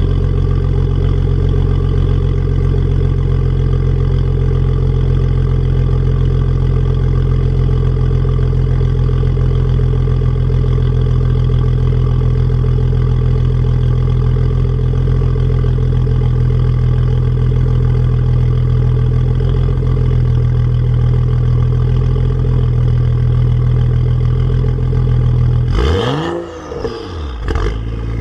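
BMW 335i's N55 turbocharged straight-six, fitted with a catless downpipe, idling steadily at a cold start through its exhaust. Near the end, one quick blip of the throttle sends the revs up and straight back down to idle.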